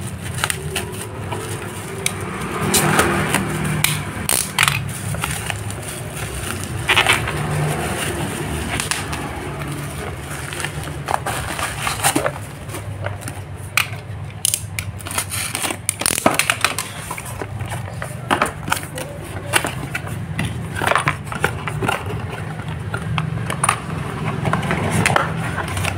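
Thin plastic parcel wrapping crinkling and tearing as it is cut and pulled off a cardboard box, in many short, irregular crackles and sharp rustles, with cardboard flaps handled near the end.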